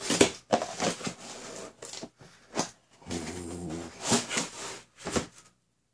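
A cardboard retail box being handled and its flap pulled open: a string of scrapes, taps and rustles of the cardboard, with a drawn-out creak in the middle, stopping short just before the end.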